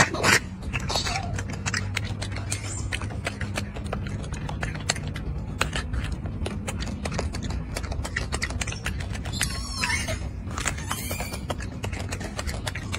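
Golden snub-nosed monkey chewing and biting food: a run of quick, irregular crunching clicks.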